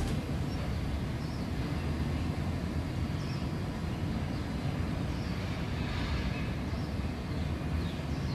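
Steady outdoor background rumble, a low even drone with faint scattered high chirps over it.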